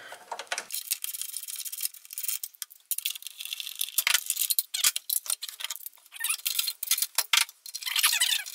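Socket ratchet clicking in quick runs as 10 mm bolts are backed out of a small engine's starter cover, with a couple of sharper knocks about four and five seconds in.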